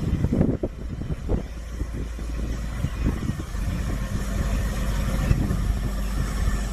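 FS D.245 diesel shunting locomotive running steadily as it hauls a train of coaches slowly past, with a string of knocks and clatter from wheels running over the track, heaviest in the first second or so.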